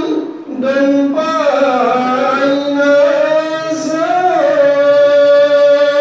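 A man singing a naat solo into a microphone: a winding, ornamented vocal line with a brief breath just after the start, settling into a long held note from about halfway through.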